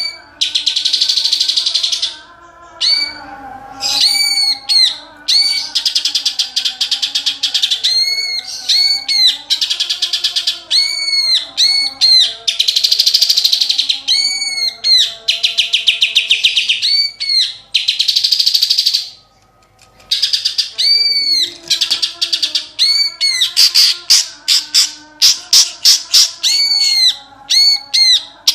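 Cucak ijo (greater green leafbird) singing loudly. It repeats sharp arched whistled notes, mixed with fast buzzy trills, in a song filled with mimicked kapas tembak and tengkek (kingfisher) calls. It pauses briefly once.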